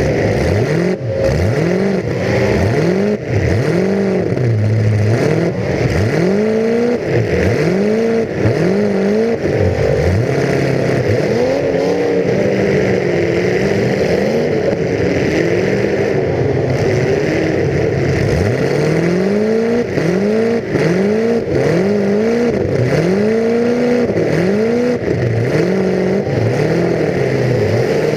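A full-size demolition derby car's engine, heard from onboard, revved hard up and down over and over as the car accelerates, backs up and hits, with a few short knocks from impacts.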